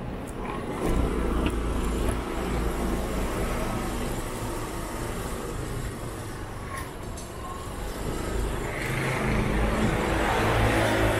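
Road traffic: vehicle engines running with tyre and road noise, and one vehicle passing close over the last few seconds, growing louder.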